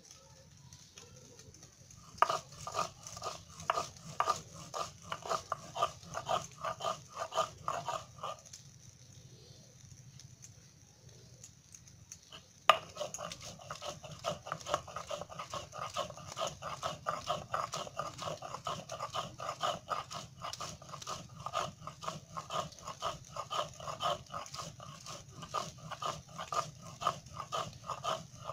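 Stone-on-stone grinding on a Bengali shil-pata: the hand stone is rocked and scraped back and forth over the flat slab, grinding spices to a paste in quick even strokes, about three a second. The grinding starts about two seconds in, stops for a few seconds, then resumes with a sharp knock and runs on steadily.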